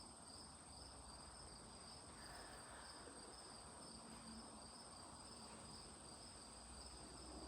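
Near silence: faint background hiss with a steady high-pitched tone and a fainter high tone that pulses on and off.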